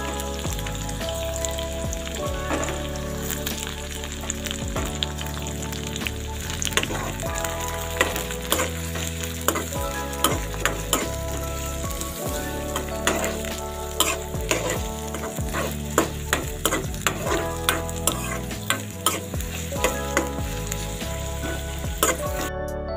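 Sliced onions and green chillies sizzling in hot oil in a steel kadai while a metal spoon stirs them, scraping and knocking against the pan in frequent sharp clicks through the middle and latter part. The sizzle cuts off suddenly just at the end.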